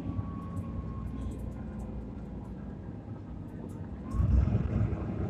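Mitsubishi Fuso Aero Star (QKG-MP35FM) city bus's diesel engine running steadily, with a faint falling whine in the first second. About four seconds in, the engine noise grows louder and heavier.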